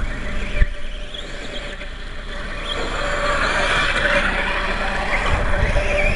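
Atomik MM450 radio-controlled dirt bike running across loose dirt, a steady motor whine over a gravelly hiss that grows louder in the second half as the bike comes closer.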